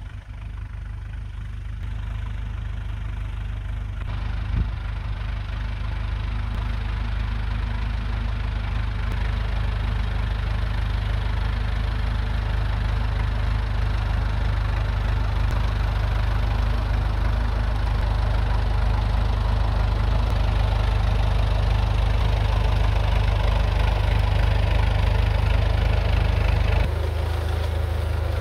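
Farm tractor engine running steadily under load while pulling a row hipper, growing gradually louder. A single sharp knock comes about four and a half seconds in, and the engine note drops and changes shortly before the end.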